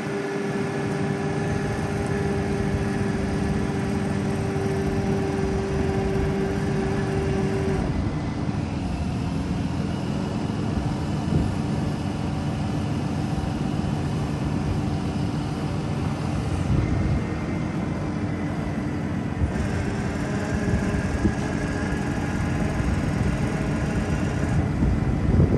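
Diesel engine of a Freightliner M2 truck, a 6.7 L Cummins, running under power-take-off load while the Altec DC47-TR digger derrick's hydraulics drive the boom downward. A steady hydraulic whine sits over the engine rumble, and its pitch shifts a few times as the controls are worked.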